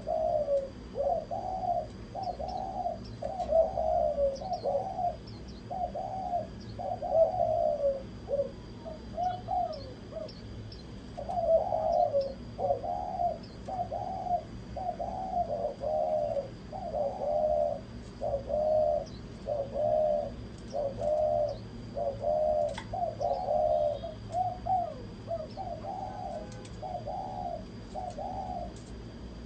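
Spotted doves cooing: runs of quick, repeated coo notes with a short break about ten seconds in. Faint high chirps from small birds and a thin steady high whine are also present.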